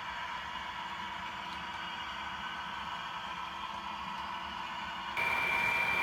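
Model railway train running on the layout: a steady hissing running noise with a faint hum. About five seconds in it cuts to a louder shot with a steady high-pitched whine from the model locomotive.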